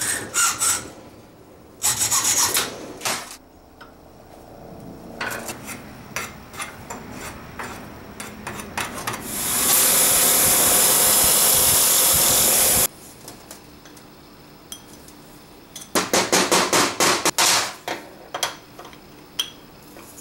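Hacksaw strokes rasping through a small metal rod clamped in a vise. Then a bench grinder runs with a steady loud whirr for about three seconds while a small part is held to its wheel. Later comes another quick run of rasping strokes, then light clicks.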